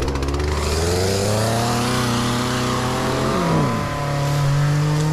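Bulldozer's diesel engine running under throttle close by, its note rising a little and then dropping about three seconds in before holding steady at the new speed.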